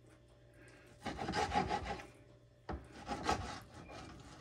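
Two spells of rough scraping and rubbing, each about a second long, from hands and utensils handling food at a kitchen counter.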